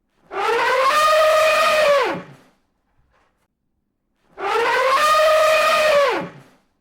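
A long pitched animal call, played twice with a pause between; each call rises, holds steady, then drops away at the end.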